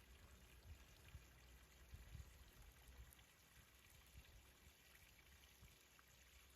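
Faint babbling water, a soft steady trickling.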